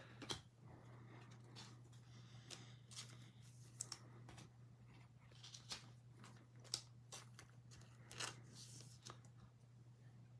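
Faint handling of trading cards and their foil pack: short scattered rustles, scrapes and clicks, with a low steady hum underneath.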